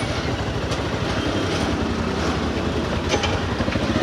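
Vehicle riding through city traffic: a steady, rapidly pulsing engine rumble with road and wind noise.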